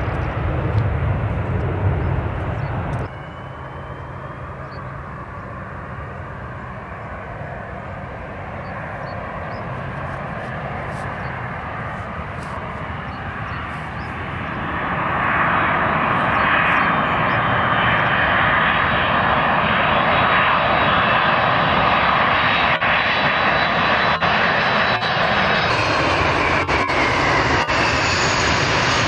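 A landing airliner's jet noise for the first three seconds, cut off abruptly. Then an Airbus A330's engines on final approach, swelling to a loud roar with a high whine that slides slowly down in pitch as the jet passes close by just before touchdown.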